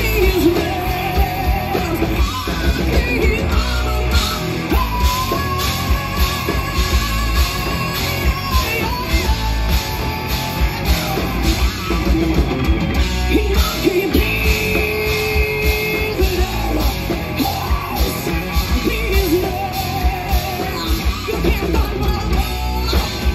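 Live hard rock band playing loudly: electric guitar, bass guitar and drums keeping a steady beat, with long held notes that waver in pitch over the top.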